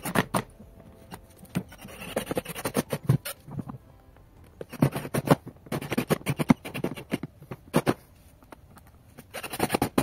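WAP cordless drill-driver driving the lid screws back into a plastic air filter housing, in several bursts of rapid clicking a few seconds apart.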